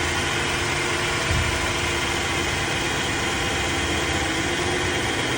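Car engine idling steadily, with one brief low thump about a second in; the engine has a misfire.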